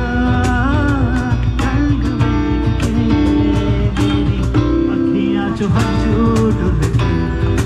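Band music: a voice singing over guitar, with a steady beat of about two strokes a second.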